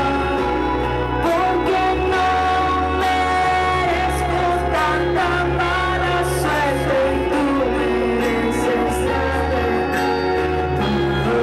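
Live band music: a woman singing lead while strumming an acoustic guitar, with other instruments playing steady low notes beneath.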